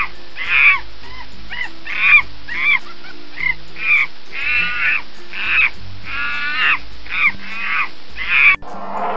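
An animal giving a quick series of short, high, arching calls, about two a second, with a cut to a different sound near the end.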